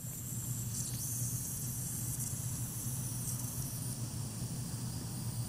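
Hunter MP2000 rotator sprinkler nozzle running, its multiple water streams making a steady high hiss, over a steady low hum.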